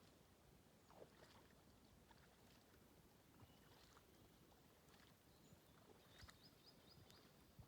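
Near silence with faint kayak paddle splashes and drips, and a short run of faint high chirps near the end.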